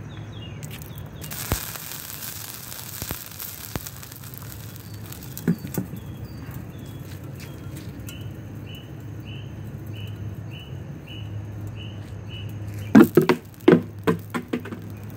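A small fire on pavement flares with a loud hiss, crackles and ticks. Near the end a quick cluster of about five sharp bangs goes off under an upturned plastic bucket and blows the bucket into the air.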